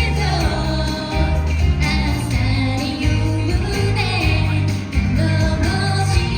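Live pop music with a steady bass line and a singing voice.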